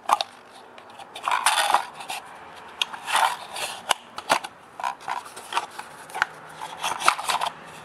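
Fingers working the old pull cord out of the plastic rope rotor of a Stihl TS-420 recoil starter: irregular scraping and rubbing with a few sharp plastic clicks.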